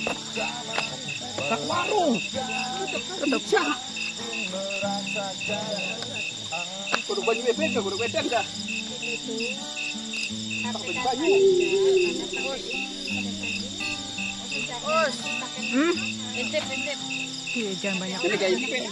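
Crickets chirping steadily at night: a high trill held throughout with an even chirp pulsing about two to three times a second. Louder wavering voice-like sounds and acoustic guitar come and go underneath.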